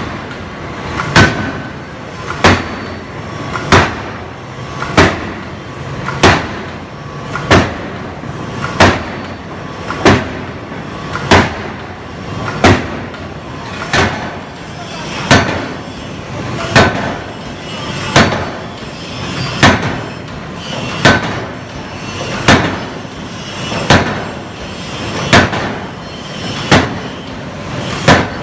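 Hydraulic open-die forging hammer, converted from an old steam-pneumatic hammer, striking a red-hot flange blank. Heavy blows come in a steady rhythm, about one every 1.3 seconds, with a short rising swell before each blow.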